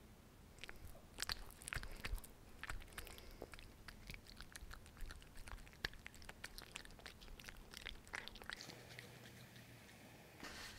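Russian Blue cat eating small pieces of baked potato close to the microphone: irregular small chewing clicks and crunches.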